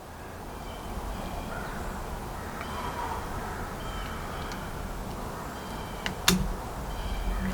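Birds calling in short repeated notes over a steady low rumble, with two sharp clicks about six seconds in.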